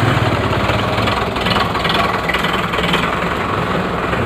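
Road roller's diesel engine running steadily.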